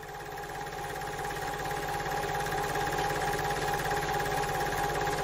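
Film projector sound effect: a fast, even mechanical clatter under a steady whine, growing louder over the first couple of seconds.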